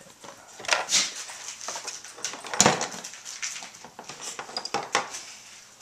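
Rustling, with irregular light clicks and knocks, from plastic toys and a cardboard game box being handled.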